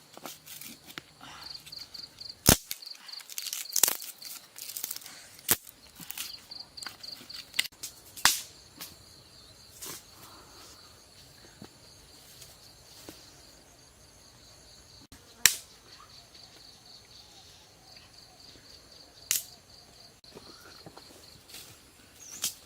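An insect chirping in a steady high pulse, about four chirps a second, fading after the first half, with scattered sharp clicks and knocks.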